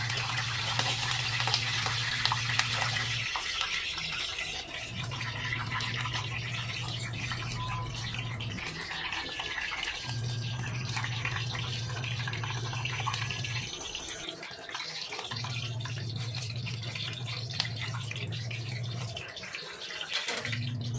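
Breaded chicken patties frying in a pan of hot oil: a steady crackling sizzle. Under it, a low hum cuts in and out every few seconds.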